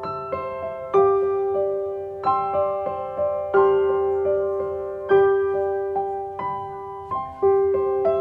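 Soft background piano music: notes and chords struck roughly every second, each left to ring and fade, over a repeating middle note.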